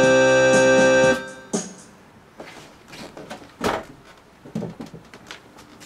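Electronic keyboard holding a final sustained chord that cuts off about a second in, followed by scattered clicks and knocks as the keyboard is handled.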